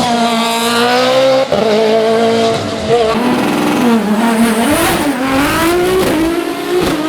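A hill-climb race car's engine at full throttle, its pitch climbing and then cutting briefly at a gear change about one and a half seconds in. It then dips and rises again several times as the car accelerates, brakes and shifts.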